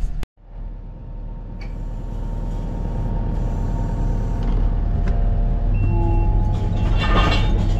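Compact track loader's engine running, growing steadily louder, with a steady whine joining about six seconds in and a short rattle around seven seconds in.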